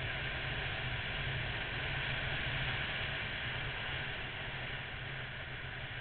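Wind rushing over the camera microphone at riding speed, with the Honda VFR800's V4 engine running steadily underneath as a low hum; a little quieter near the end.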